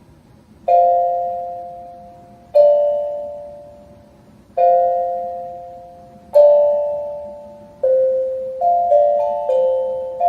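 Music: four chiming keyboard chords about two seconds apart, each struck and left to fade, followed by a quicker run of overlapping notes near the end.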